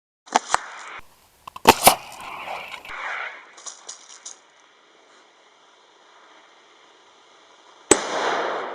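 Sharp bangs of airsoft pyrotechnic grenades going off: a few cracks early on, two loud bangs close together about two seconds in, and another loud bang near the end, each followed by a rushing noise.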